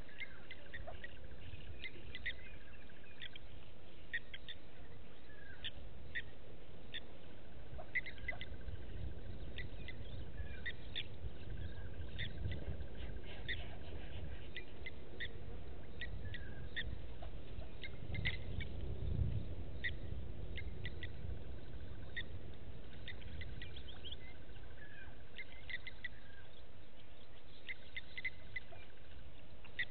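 Wild birds chirping in the bush: many short high chirps and calls at irregular intervals, with a steady high trill at times. Under them is a low rumble that swells about two-thirds of the way through.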